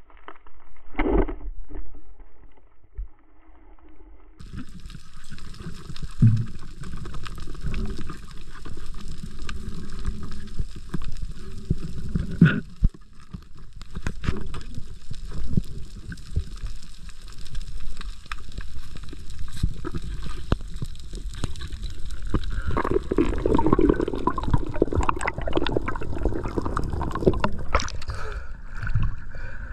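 Water moving past an underwater camera on a diving spearfisher: a muffled low rumble and gurgling with scattered knocks. Near the end there is louder splashing and bubbling at the sea surface.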